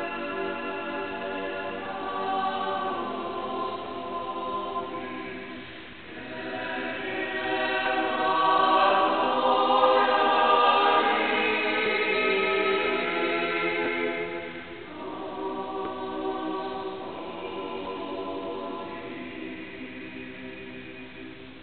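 Mixed choir of men's and women's voices singing in sustained harmony, swelling to its loudest about eight to twelve seconds in and growing softer again after about fifteen seconds.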